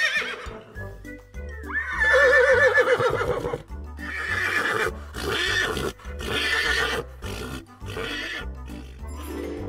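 A horse neighing: several whinnies, the longest a quavering one about two seconds in, over background music with a steady low bass.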